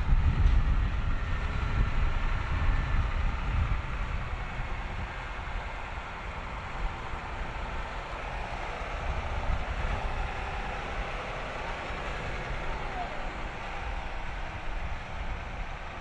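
John Deere 7280R tractor's engine running under load as it pulls an eight-furrow plough, a deep steady rumble that gets quieter over the first few seconds, then holds steady.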